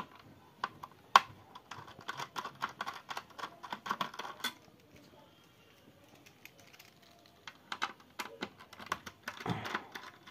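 Quick, irregular light clicks and taps of small metal parts and screws being handled while a Dell OptiPlex 3011 all-in-one's motherboard is taken out of its metal chassis. The clicking stops for a couple of seconds in the middle, then starts again.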